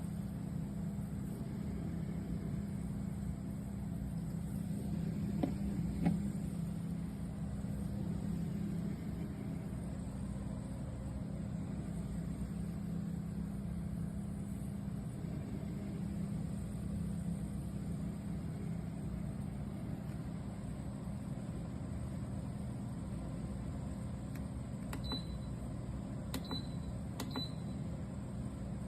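Steady low hum of a 12 V compressor car fridge running. There are a couple of knocks about six seconds in, and three short, high beeps with clicks near the end.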